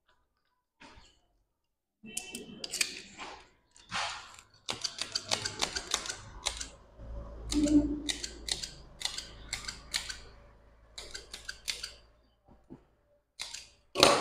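A run of sharp clicks and taps, uneven at first, then fast and close together for a few seconds in the middle over a low hum.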